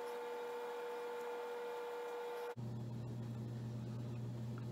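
Steady electrical hum with a high whine. About two and a half seconds in it cuts off suddenly and gives way to a lower steady hum.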